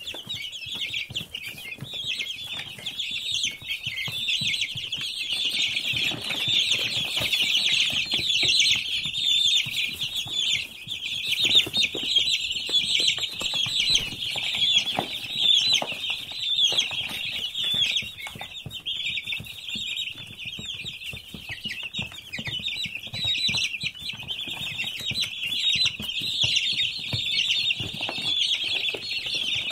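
Many domestic chicken chicks peeping together, a dense, continuous chorus of short, high chirps.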